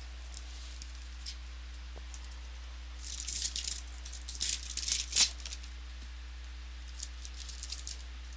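Trading card packaging crinkling and rattling as it is opened and the cards are handled. It comes in two bursts, one around the middle, with a sharp snap at its end, and a shorter one near the end. A steady low electrical hum runs under it.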